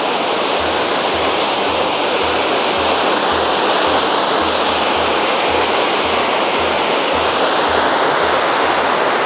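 Steady rushing of the Rhine Falls, the river's water pouring over the falls, with a low beat about twice a second underneath.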